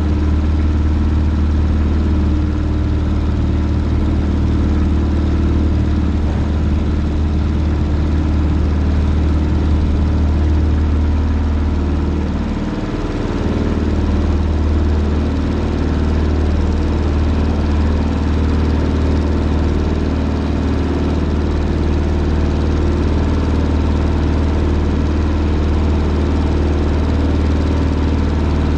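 Cessna's piston engine and propeller running steadily, heard from inside the cabin, through a takeoff from a grass field and into the climb. There is a brief dip in the engine sound about halfway through.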